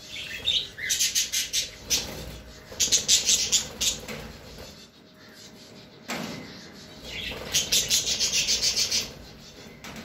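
Caged budgerigars chattering in several bursts of rapid, high chirps.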